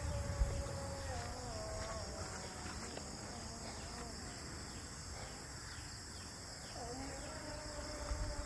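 Outdoor ambience with a steady insect drone and faint regular chirping, over faint drawn-out tones that waver and shift in pitch.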